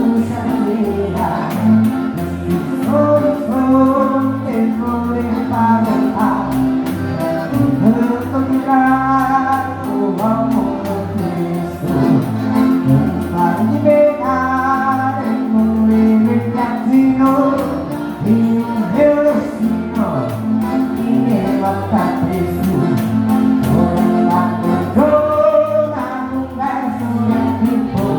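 Live gaúcho dance music, an accordion-led band playing a melody over a steady stepping bass line.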